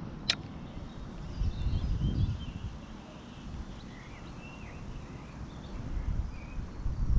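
Birds chirping in short rising and falling calls over low rumbling gusts of wind noise, with a single sharp click about a third of a second in.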